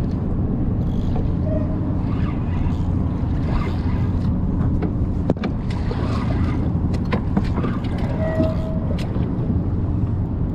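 Steady low hum of a small outboard motor idling on an aluminium skiff, with wind and water around the boat and a few light clicks as a spinning reel is cranked.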